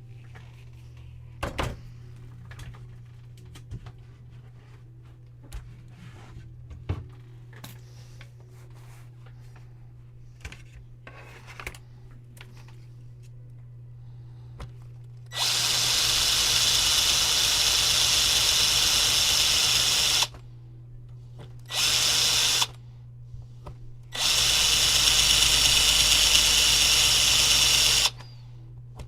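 Light clicks and handling of small parts over a steady low hum, then a handheld power tool runs in three trigger bursts, the first about five seconds, a brief second one, and a longer third, each starting and stopping abruptly.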